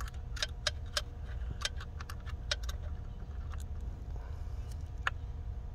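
Irregular light clicks of an Allen key worked a turn at a time on a blend door actuator screw, the metal key ticking against the screw and housing, over a low steady hum.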